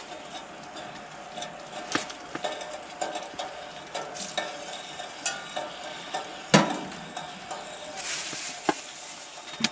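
Clinks and knocks of a metal coffee cezve being rinsed and set down on a hot sheet-metal wood-stove top, the loudest knock about two-thirds of the way through, over a steady faint hiss.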